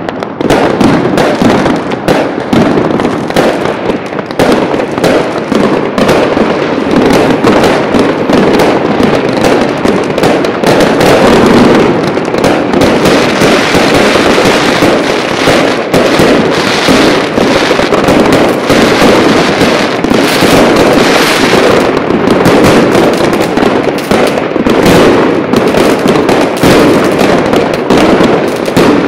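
Loud, continuous barrage of fireworks: aerial shells and firecrackers bursting in dense, overlapping bangs and crackles with no pause.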